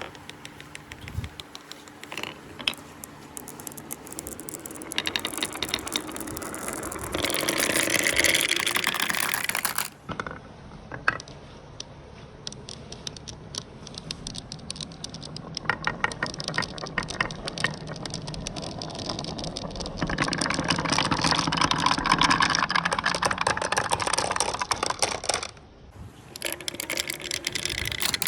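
Marbles rolling and clattering along a marble run track: a rapid, dense clicking rattle that swells louder for a few seconds twice, with abrupt breaks where the shot changes.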